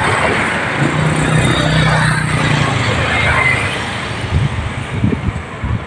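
Road traffic passing close: a pickup truck goes by with engine hum and tyre noise, fading away about four seconds in.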